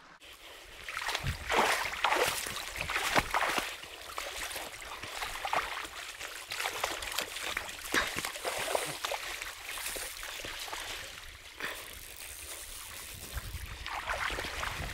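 Irregular splashing in shallow river water over the steady wash of the current, busiest in the first few seconds and again near the end, with a low rumble of wind on the microphone.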